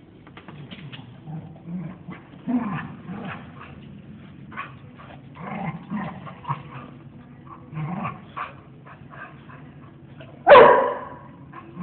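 Two dogs play-fighting, with short low growls and grumbles again and again and one loud bark about ten and a half seconds in.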